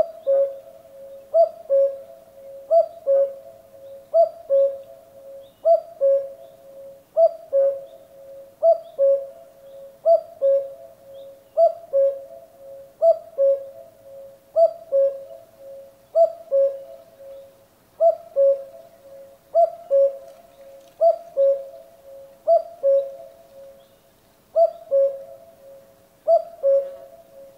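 Common cuckoo calling its two-note "cu-ckoo", a higher note falling to a lower one, repeated steadily about once every one and a half seconds.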